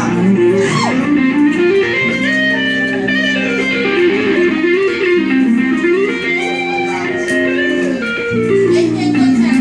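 Solo guitar playing: quick runs of plucked notes climbing and falling over held low notes, in a repeating pattern.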